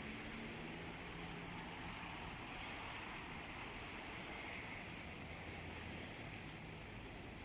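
Steady outdoor background noise: an even hiss with a faint low hum of distant traffic.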